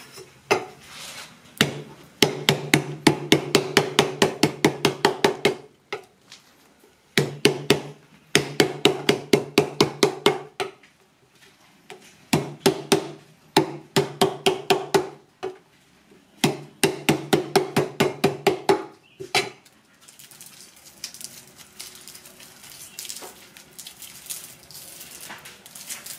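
Cleaver chopping lemongrass stalks on a thick wooden chopping block: rapid runs of knocks, about five a second, in four bursts of a few seconds each with short pauses between. After about twenty seconds the knocks stop and only faint handling noise remains.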